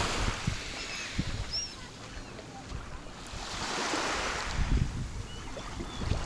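Sea waves breaking and washing onto the shore, swelling twice, with wind rumbling on the microphone and a few faint short bird calls above.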